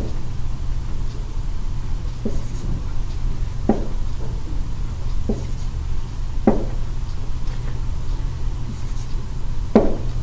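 Dry-erase marker writing on a whiteboard: several short, separate strokes over a steady low hum.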